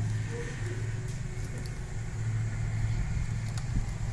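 A steady low hum, with a faint click near the end from a screwdriver on the switch terminals.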